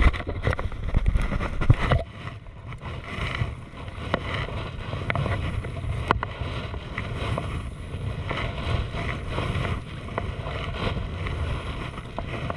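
Sea kayak being paddled: water splashing and lapping at the bow with each paddle stroke, under steady wind rumble on the microphone. A few sharp ticks of drips or paddle knocks stand out, the sharpest about six seconds in.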